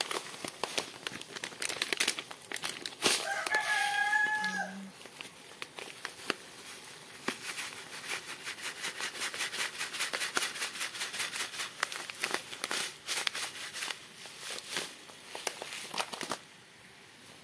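Foil food packet crinkling and crackling as it is handled and emptied into a pan. A rooster crows once in the background about three and a half seconds in, a held call that falls away at the end.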